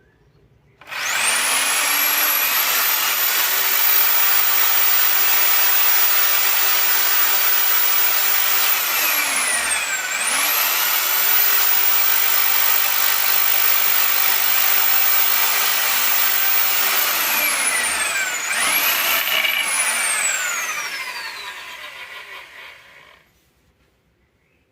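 Bosch GSB 500RE corded drill's motor spinning up and running at full speed with a high whine. It slows and picks up again about nine seconds in and once more near seventeen seconds, revs briefly, then winds down to a stop as the trigger is released.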